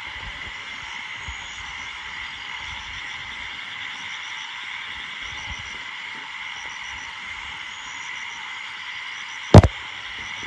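Steady night chorus of frogs. One sharp knock comes near the end.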